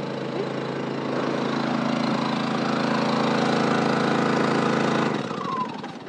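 Small portable inverter generator running steadily, charging the truck camper's batteries. Its drone drops away sharply about five seconds in.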